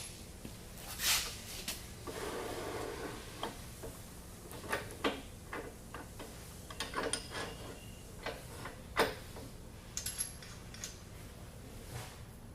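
Steel puller parts being handled and fitted: scattered light metallic clicks and clinks, with a short scraping rub about two seconds in.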